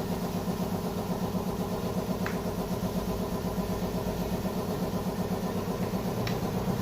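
An engine idling steadily with an even, fast pulsing throb, with two faint light clicks about two seconds and six seconds in.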